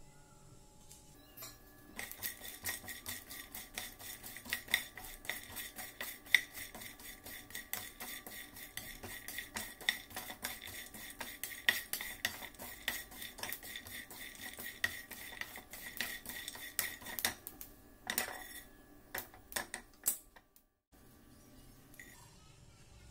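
Mixed whole nuts and sesame seeds being stirred with a wooden spatula in a dry frying pan: a dense, rapid rattle of nuts clicking and scraping against the pan, stopping at about 17 seconds, with a few more scrapes afterwards.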